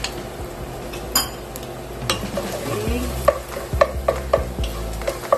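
Wooden spoon stirring and scraping onions and tomato paste frying in oil in a pot, with a light sizzle and several knocks of the spoon against the pot, coming closer together from about three seconds in.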